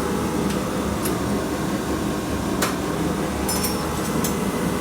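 A machine running steadily with a low hum, with several light clicks and taps over it.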